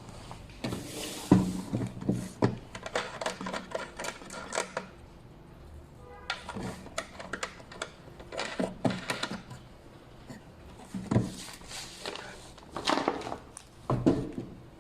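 Small plastic screw-on knobs being handled: irregular clicks and light knocks of hard plastic, in clusters with short pauses between.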